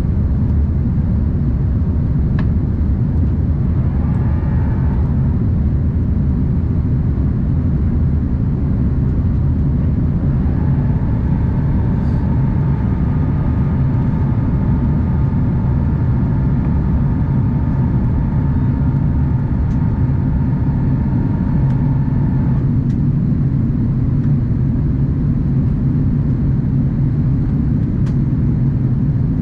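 Cabin noise of an Airbus A330-900neo climbing out after takeoff: a steady low rumble of airflow and its Rolls-Royce Trent 7000 engines. For about twelve seconds in the middle, a faint higher hum made of several tones together rides over it.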